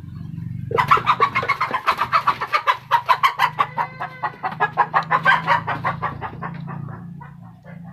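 A chicken clucking in a loud, fast run of repeated calls, about seven or eight a second. It starts about a second in and fades out near the end.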